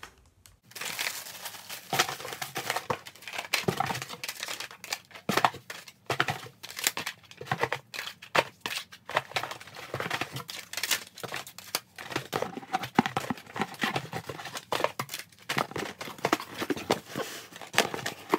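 Cardboard shipping boxes and packaging being handled: irregular crinkling, rustling and small knocks.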